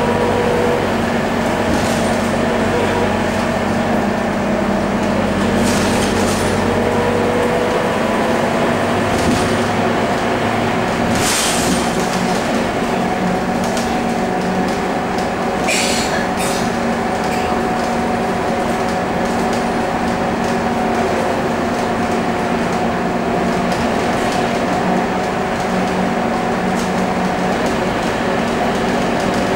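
Scania K230UB bus under way, heard from inside the passenger saloon: its Scania DC9 diesel engine drones steadily with several whining tones that slowly shift in pitch, over road and cabin noise. Twice there is a brief rattle.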